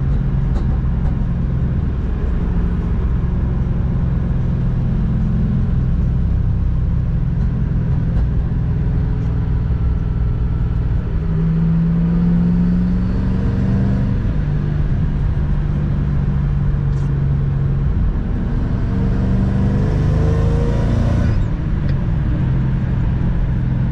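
Car engine and tyre noise heard from inside the cabin while driving on a wet road. The engine hum steps up and down in pitch several times with the throttle. A hiss builds and cuts off sharply about three-quarters of the way through as an oncoming car passes.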